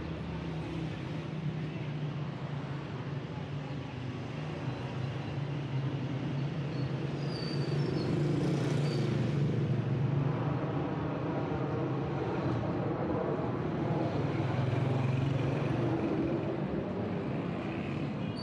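Street traffic: motor vehicle engines running with a steady low hum, swelling louder about eight seconds in and again near fourteen seconds as vehicles pass close by.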